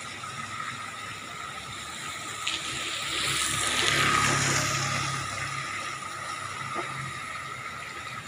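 Rainwater running and splashing across a flooded street, with a motorbike riding through the water and passing about halfway, the loudest moment.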